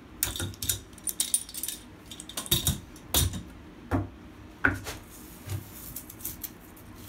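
Metal clamps being released and handled, clinking and knocking against wooden sawhorses, along with the taped aluminium plate being shifted. A string of irregular clicks and clanks, with no steady tool noise.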